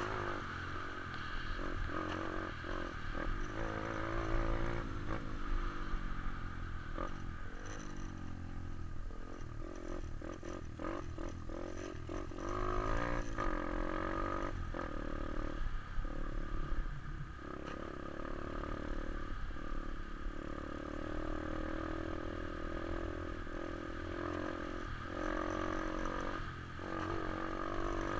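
125 cc pit bike's small single-cylinder four-stroke engine running under way, its pitch rising and falling again and again as the throttle is opened and closed.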